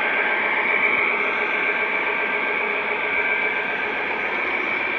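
Model freight train rolling past on the layout: a steady whirring of small metal wheels on the track, with a faint steady high whine running through it.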